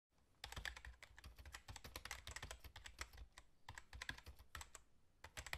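Computer keyboard typing: quick, irregular key clicks in short runs, faint, starting about half a second in.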